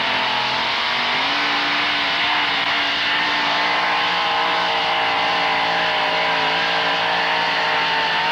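Modified pulling truck's engine held at full throttle while it drags a weight-transfer sled down the track. The engine note rises slightly about a second in, then holds a loud, steady pitch.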